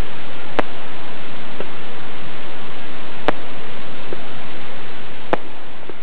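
Fireworks going off together: a loud, steady hiss and crackle with a few sharp cracks, fading away near the end.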